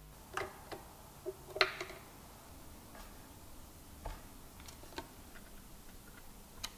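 Light clicks and taps of small hard parts handled on a wooden panel as vintage ammeter and voltmeter gauges are set in place and a pencil marks their screw holes. About seven scattered clicks; the loudest comes about a second and a half in.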